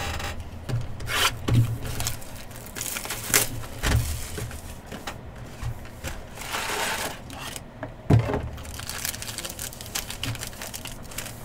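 Trading cards and their packaging being handled on a table: scattered light knocks and taps with rubbing and scraping, and a longer rustle about seven seconds in.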